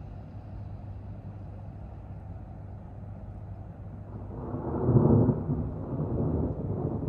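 A roll of thunder: a rumble that swells about four seconds in, peaks, then keeps rolling more quietly, over a steady low background noise.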